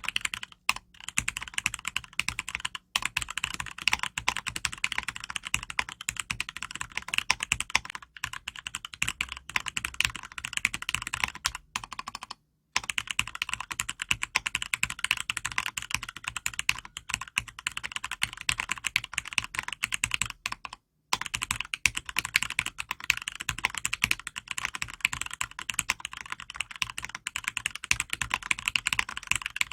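Fast, continuous typing on an acrylic-case custom mechanical keyboard with Cherry MX Red linear switches, lubed with Krytox 105 and filmed. The keystrokes clack in a dense run, with a few brief pauses.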